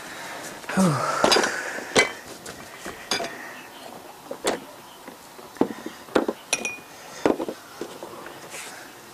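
Drinking glasses and a plastic jug on a tray clinking and knocking against a wooden table as they are set down and moved about: a series of sharp clinks, one glass ringing briefly.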